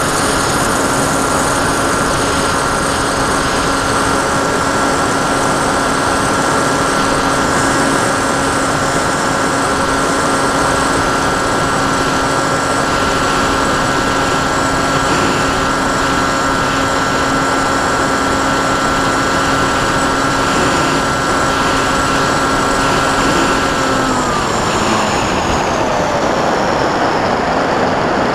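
Onboard sound of a Sky Cruiser 2400 radio-controlled plane in flight: a steady motor-and-propeller whine over wind rush. About 24 seconds in, the whine drops in pitch and fades as the motor winds down, leaving only the rush of wind.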